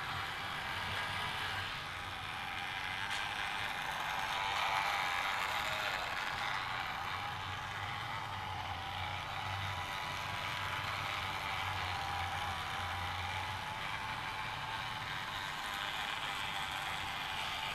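Steady whir of a Faller Car System H0 model bus's small 10 mm electric motor and gear drive as the bus drives along, with a faint high whine running through it.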